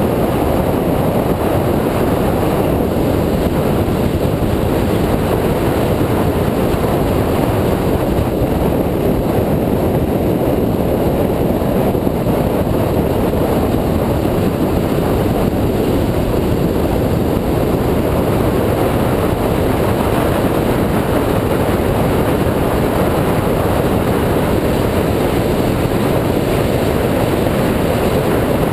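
2004 Mini Cooper S being driven at speed on a race track, heard as a steady, loud rush of wind and road noise with no distinct engine note standing out.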